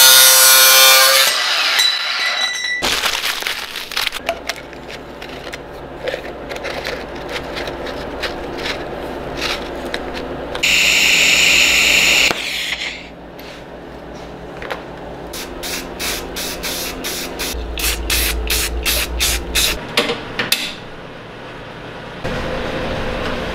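Angle grinder with a cut-off wheel cutting through a metal pipe in a vise, loud for about the first second. Then a run of sharp clicks and taps, with a steady hiss of electric arc welding about eleven seconds in lasting a couple of seconds.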